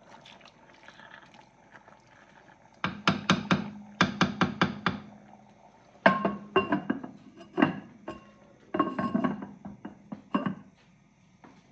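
Hard knocks and clinks on an unglazed clay cooking pot. First there are two quick runs of taps, then clay knocks against clay as the clay lid is set on the pot and settled, with a low ring under the strikes.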